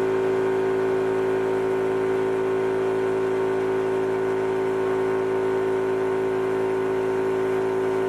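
High-pressure air compressor running steadily, a constant-pitch mechanical hum, while charging a small scuba cylinder.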